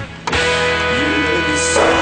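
Rock soundtrack music: after a brief drop, an electric guitar chord rings out and is held.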